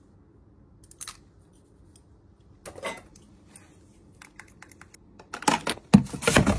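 Sparse small clicks and taps of skincare bottles being handled, then a run of loud clattering knocks about five seconds in as empty bottles and their cardboard boxes are dropped into a plastic wastebin.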